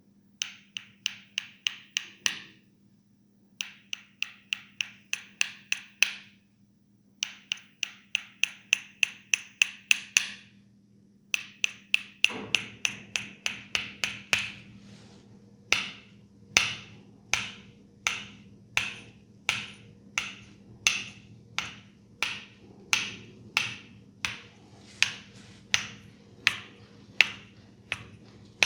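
Percussive head massage: hands striking the head in sharp taps. At first they come in quick runs of about four or five a second, a couple of seconds each with short pauses between. From about halfway they settle into a steadier beat of about two strikes a second.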